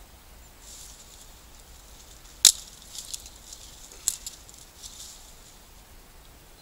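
A small wooden stick being cut with a knife: light scraping and a few sharp cracks as the wood gives, the loudest crack about two and a half seconds in, with smaller ones following over the next two seconds.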